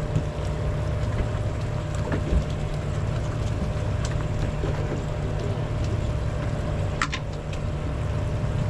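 Boat engine running steadily at idle, a continuous low drone, with wind on the microphone. A few light clicks sound over it, the clearest about seven seconds in.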